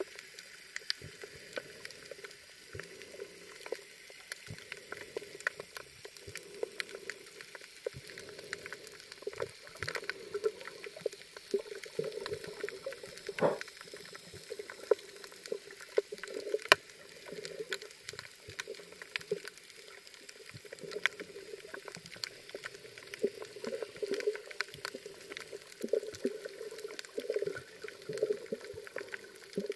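Underwater ambience on a coral reef: a muffled, uneven sloshing of moving water with many scattered sharp clicks and crackles.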